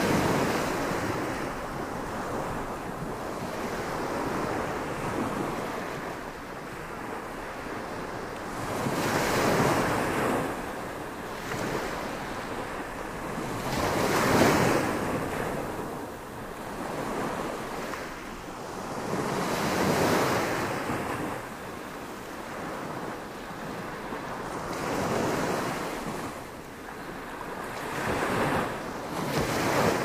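Small surf breaking and washing up a sandy beach, each wave swelling and fading about every five seconds.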